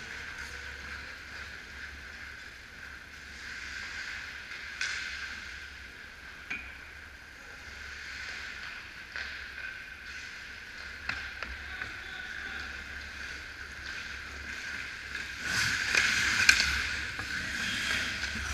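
Ice hockey play: skate blades scraping the ice and scattered sharp clacks of sticks and puck, faint at first. About fifteen seconds in it grows louder as skaters come in close, with louder scraping and several sharp stick-and-puck clacks.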